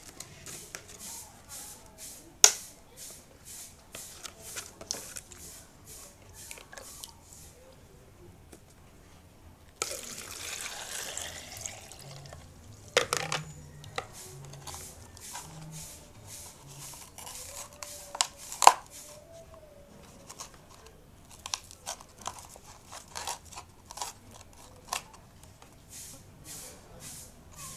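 Hands handling water hyacinth stems and plastic: steady light crinkling and clicking, with two sharper knocks. About ten seconds in, water is poured into a glass for about two seconds, rising in pitch as it fills.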